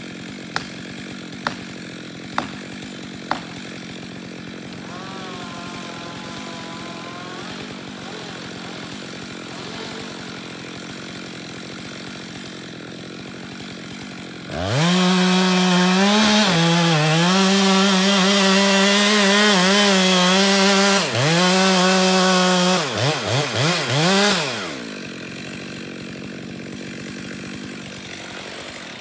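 Chainsaw idling, with four sharp knocks in the first few seconds. About halfway through it is revved to full throttle and cuts into the base of a beech trunk for about ten seconds, with a brief dip in the middle. It ends with a few quick throttle blips and drops back to idle.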